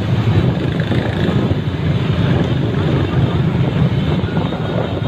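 Steady wind rumble on the microphone of a moving motorbike, over the running engines of a large pack of motor scooters riding together.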